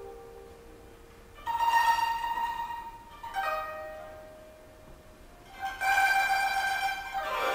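Solo koto played slowly: short clusters of plucked notes about two seconds apart, each left to ring and fade away before the next, with another cluster beginning near the end.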